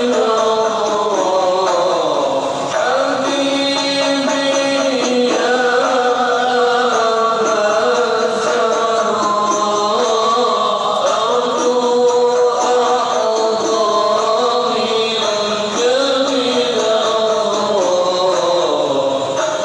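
A man's voice chanting Arabic devotional verse (shalawat) through a microphone and loudspeakers, in long held notes that glide from one pitch to the next.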